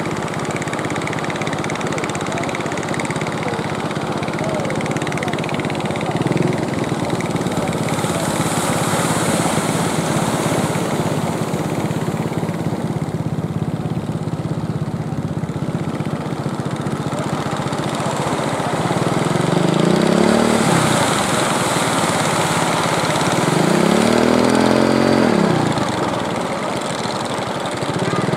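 Small fishing-boat engines running steadily over the wash of surf; in the second half the engine pitch rises and falls in about three swells as boats pass close by.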